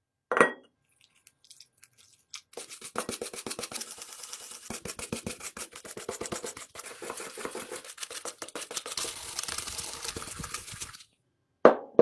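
A sharp knock, then about eight seconds of rapid hand-brushing or scrubbing strokes on a hard part, then another knock near the end.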